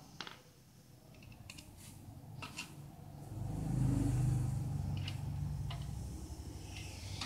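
Metal clicks and clinks of a wrench working the bolts of a D15 diesel engine's round crankshaft cover, a handful of separate taps. A low engine hum swells about three seconds in and is the loudest sound, then slowly fades.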